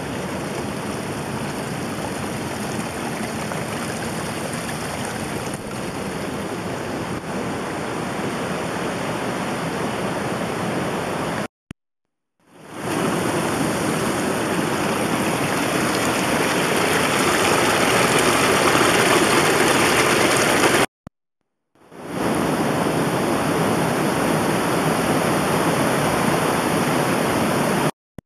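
Steady rushing water, like a fast creek or waterfall, in three stretches separated by brief silent cuts, each starting up abruptly after the gap.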